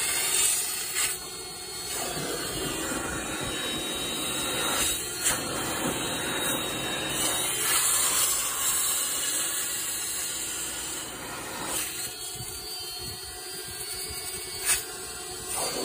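Upholstery extractor's suction drawing air and dirty water through a clear wand pulled across a fabric car seat: a steady hiss that eases and swells as the wand moves, with a couple of short clicks.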